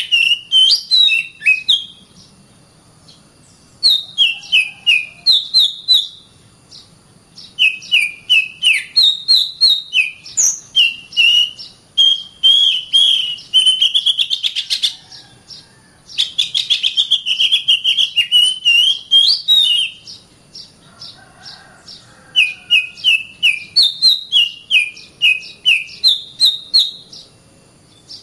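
An Oriental magpie-robin (kacer) singing: phrases of quick, repeated whistled notes mixed with sharp clicks, broken by short pauses.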